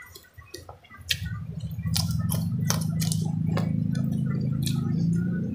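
Close-up mouth sounds of someone eating with their hand: chewing and smacking clicks. About a second in, a loud steady low hum sets in and stays.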